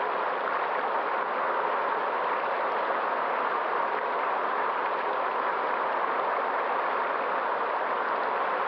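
River water flowing: a steady, even rush with no breaks or changes.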